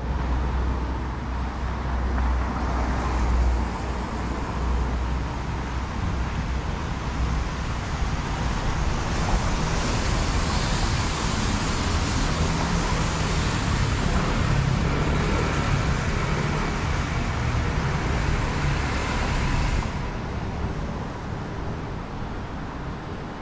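City street ambience of traffic noise. The constant hiss brightens about nine seconds in and falls away sharply about twenty seconds in.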